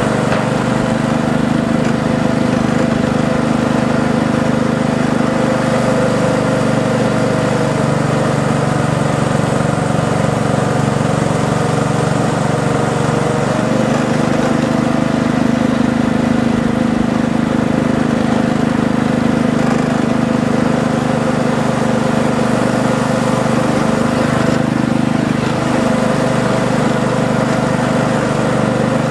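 Steady mechanical running noise of a miniature ride-on railway train, heard from aboard, with a humming drone that shifts pitch a couple of times.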